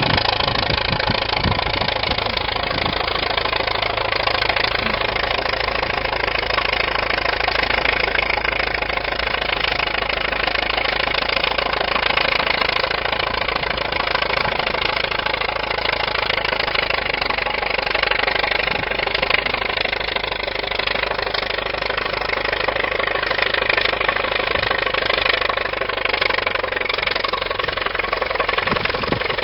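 1931 Allis-Chalmers bulldozer's engine running steadily at an even pace.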